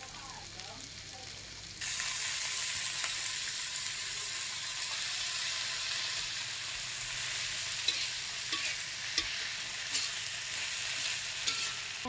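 Spice paste frying in a wok, then a louder, steady sizzle from about two seconds in as chopped fern leaves fry in the hot oil. A metal spatula stirs the greens and clacks against the wok a few times.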